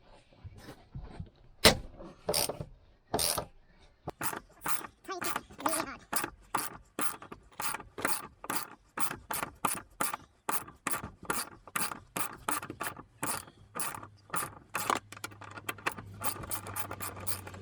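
Socket ratchet wrench clicking as a 14 mm seat-belt anchor bolt is wound out. The clicks come in a steady run of about three a second, after a few separate louder knocks at the start.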